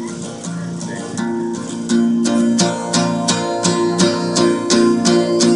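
Acoustic guitar strummed in a steady rhythm, the strumming getting louder about two seconds in.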